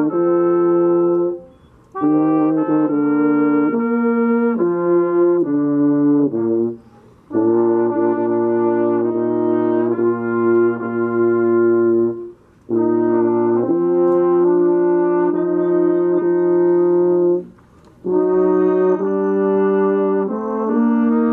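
Live brass music: a trumpet with lower brass beneath it plays a slow tune in long held notes. The phrases break off briefly about every five seconds.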